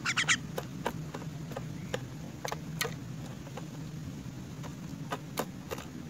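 A young myna pecking at crickets in a plastic cup: a string of sharp, irregular beak taps and clicks, with a quick cluster of them at the start. A low steady hum runs underneath.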